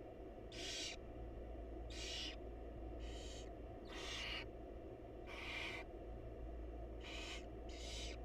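Barn owl nestlings giving rasping, hissing begging calls, seven short hisses about a second apart, over a steady low hum.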